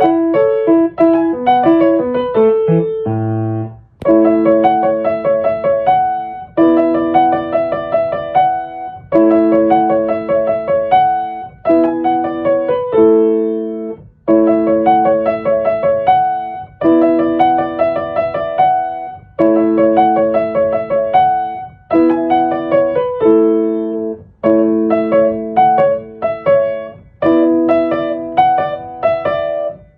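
Background piano music playing a repeating phrase of chords about every two and a half seconds.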